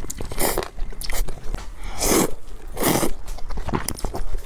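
A person slurping noodles close to the microphone. There are three loud slurps, about half a second, two seconds and three seconds in, with wet mouth clicks and chewing between them.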